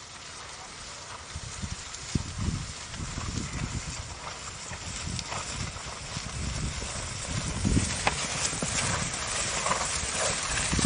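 Horse's hooves clip-clopping, irregular low thuds that grow louder toward the end, over a steady hiss.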